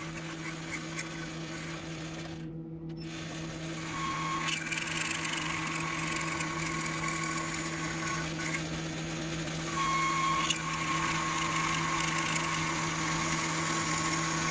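Metal lathe running with its motor humming steadily while a boring bar cuts the inside of a stainless steel workpiece. A higher cutting hiss and whine comes in about four seconds in, eases briefly around nine seconds, then resumes.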